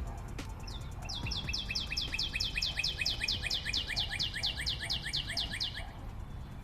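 A bird calling in a rapid, even series of short, falling high-pitched chirps, about five a second, which stops about six seconds in, over a steady low rumble.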